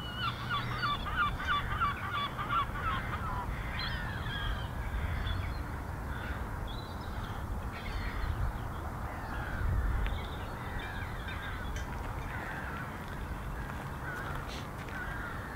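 Wild birds calling: a dense run of quick repeated calls in the first three seconds, then scattered single calls, over a low rumble.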